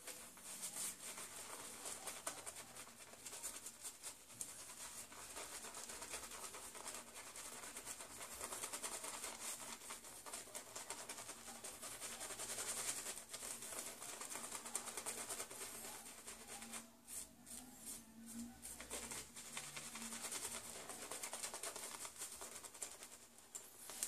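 Boar-bristle shaving brush (Omega 11775) being worked briskly over a wet, bearded face, whipping shaving cream into lather: a faint, continuous scratchy rubbing made of many quick strokes. It lets up briefly about 17 seconds in.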